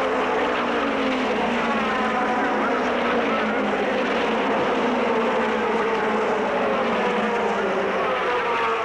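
A field of Indy race cars at full throttle, accelerating past at the green-flag start. Several engine notes overlap, each sliding down in pitch as the cars go by.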